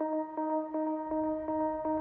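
Background music: a held note with a steady pulse of about three beats a second.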